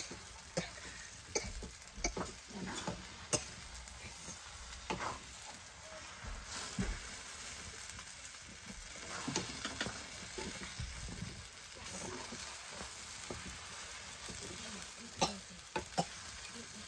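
Noodles sizzling in a metal kadai over a wood fire as a spatula stirs and lifts them, with frequent sharp clicks and scrapes of the spatula against the pan.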